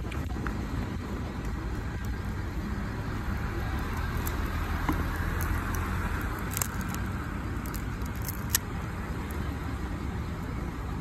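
A plastic label being peeled off a plastic Coca-Cola bottle, with a few sharp crinkles, the loudest about eight and a half seconds in, over a steady low outdoor rumble.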